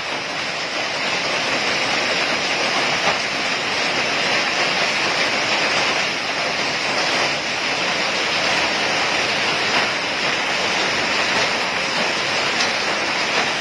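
Heavy hailstorm with rain pouring down: a dense, steady hiss of falling hail and rain with a few sharper ticks of hailstones striking.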